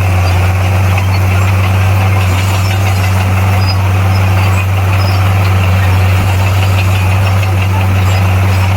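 Heavy diesel engine of a bulldozer running at a steady speed, a loud, even low drone with no revving or breaks.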